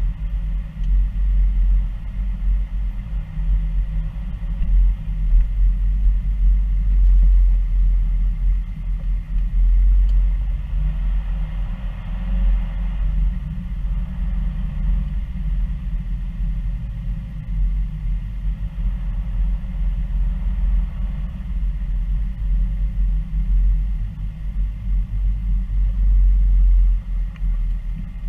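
Low, steady rumble of a car driving slowly, heard from inside its cabin: engine and tyre noise with gentle swells in loudness.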